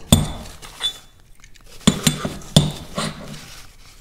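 Metal engine-mount plates clinking and knocking together as they are handled and set down, about three sharp clinks, with packing paper and plastic rustling in between.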